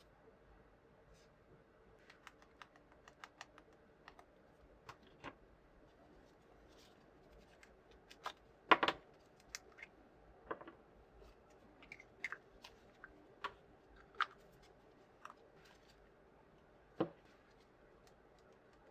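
Light plastic clicks and taps from a Nendoroid figure's parts and packaging being handled. They come irregularly, with a louder knock about nine seconds in and a few sharper clicks after it.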